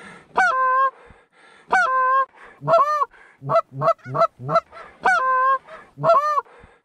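Hand-blown Canada goose call, sounding a run of loud honks and quicker short clucks, the longer honks breaking sharply in pitch, to call in a flock of Canada geese.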